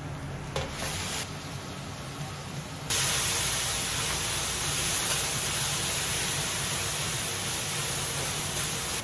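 Boiled noodles sizzling as they fry on a hot steel teppan griddle, a steady hiss that turns much louder about three seconds in.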